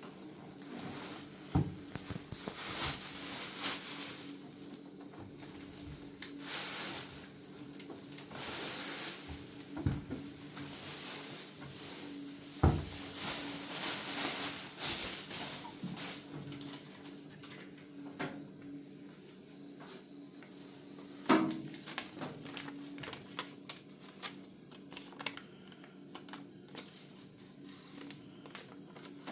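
Packaging being handled during a microwave unboxing: irregular rustling and crinkling with a few sharp knocks, the loudest about a second and a half, twelve and a half and twenty-one seconds in, over a faint steady hum.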